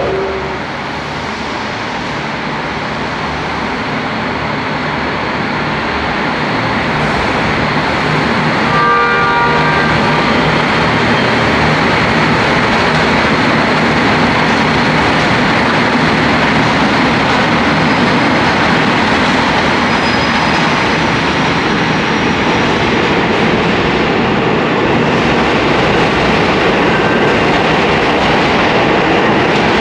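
Train running on rails, a loud, dense rumble that builds over the first several seconds and then holds steady. About nine seconds in, a brief tone sounds over it.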